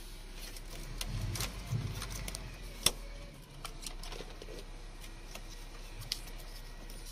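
Hands handling the wiring harness and plastic parts of a truck's fuse and relay box: scattered light clicks and rustles, with a sharp click about three seconds in and another about six seconds in, over a steady low hum.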